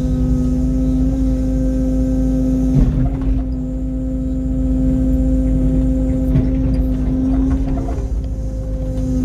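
Kubota mini excavator's diesel engine and hydraulics running steadily under load with a constant pitched hum, heard from the operator's seat as the boom and bucket move. A short knock comes about three seconds in and another past the six-second mark.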